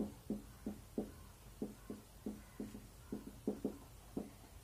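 Marker pen writing on a whiteboard: faint, short strokes and taps of the tip on the board, about three a second at an uneven pace.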